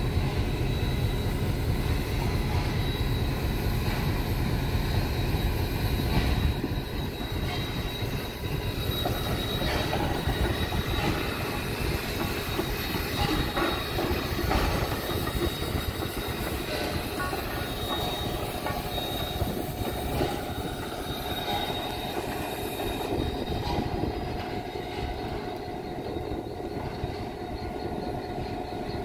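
Saddle-tank steam locomotive working past at close range, wheels rolling and knocking over the rail joints, with a thin steady high tone running through. Near the end a diesel locomotive comes up behind, its engine running.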